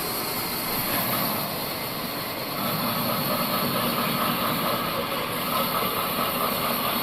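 Old bandsaw sawmill running steadily, with a higher whine setting in about two and a half seconds in.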